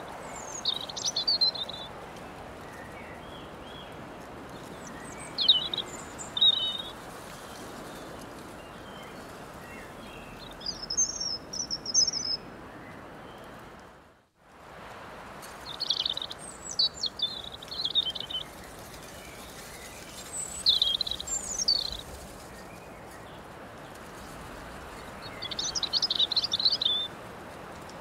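Songbirds singing short, high chirping phrases every few seconds over a steady breeze hiss. About halfway through, everything fades out for a moment and comes back in.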